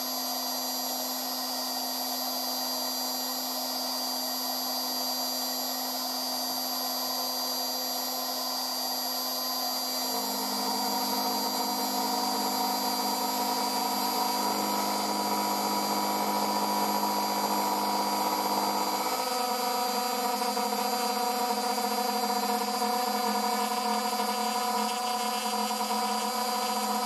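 CNC router spindle running with a steady whine while a small end mill cuts a round pocket into aluminium plate. The cutting sound changes about ten seconds in, growing slightly louder, and changes again near twenty seconds.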